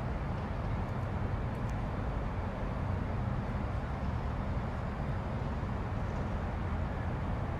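Outdoor night ambience: a steady, low, distant rumble that holds at one level without rising or falling.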